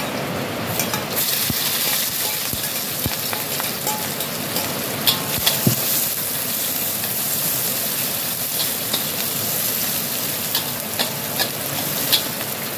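Sliced ginger, shallots, garlic and chillies hitting hot oil in a wok start sizzling about a second in and keep frying steadily as they are sautéed. A metal spatula scrapes and clicks against the wok as it stirs.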